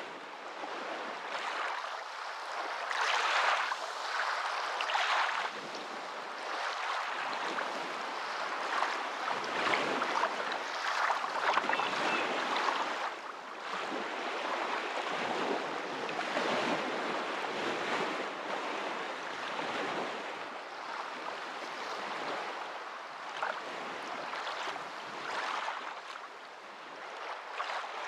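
Moving water: a steady rushing wash that swells and eases every few seconds.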